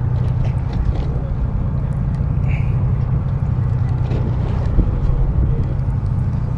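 Charter boat's engine running steadily, a low drone.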